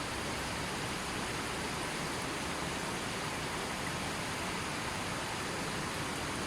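A river flowing in a steady, even rush of water, with no birds or other sounds over it.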